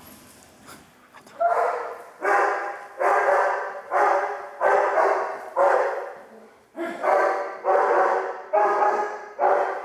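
Police dog barking at a glass door, about ten barks a little under a second apart, starting about a second in. The dog is signalling that it has found the person hidden during a building-search exercise.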